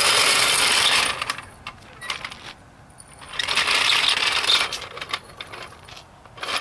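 A metal car jack being moved into place, clanking and scraping. There are two loud stretches of rattling scrape, one at the start and one in the middle, with sharp clicks and clinks between them.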